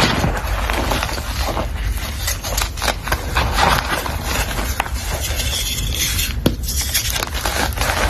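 Continuous scraping and crackling, dense with small sharp clicks.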